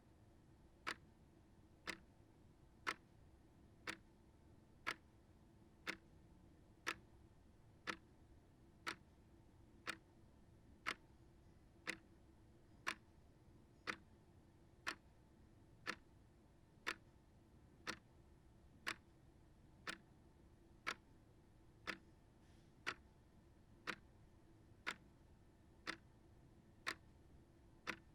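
Small shelf clock ticking steadily, one sharp tick about every second.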